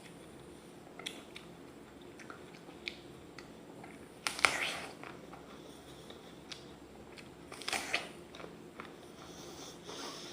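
Biting into a raw apple: two loud crunching bites, about four and eight seconds in, with quieter crisp chewing crunches between them.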